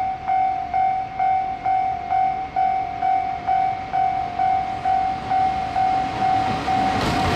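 Level crossing warning bell ringing in a steady, even beat of about two strikes a second. Near the end the noise of an approaching train rises under it.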